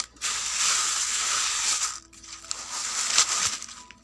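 Rice grains sliding and rattling across a bamboo winnowing tray (kula) in two long shaking strokes, as the rice is winnowed to separate out the bran.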